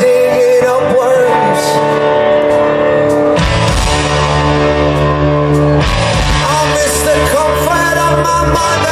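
Live rock band playing with a male lead voice singing held notes over bass guitar. The band plays fuller and harder for a couple of seconds in the middle.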